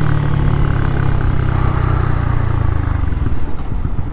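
Honda CB150R's single-cylinder engine running steadily at low revs while riding; about three seconds in the steady tone drops away into a rougher, uneven low sound as the bike slows.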